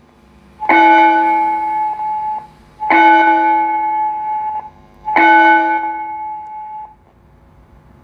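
Digicon DS-2025 digital school bell timer playing its recorded gong-style bell through an amplifier speaker. It strikes three times about two seconds apart, and each tone rings steadily for under two seconds before cutting off. This is the period bell that follows the "period number 3" announcement.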